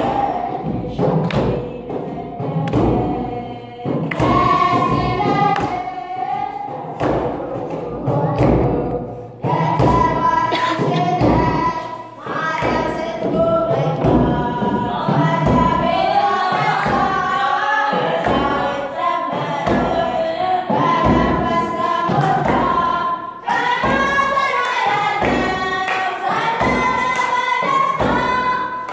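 Choir singing over regular drum beats.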